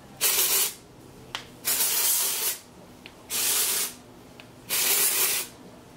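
Aerosol can of Not Your Mother's Clean Freak dry shampoo spraying at the hair roots in four short bursts of hiss, each about half a second to a second long, with short pauses between.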